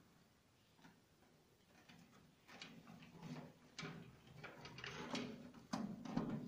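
Screwdriver working the terminal screws of miniature circuit breakers in a three-phase distribution board: faint, irregular clicks and scrapes that grow busier and louder over the last few seconds.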